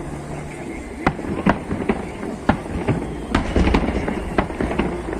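Fireworks going off: an irregular series of sharp bangs and crackles over a low rumble, with a burst of several loud bangs close together a little past the middle.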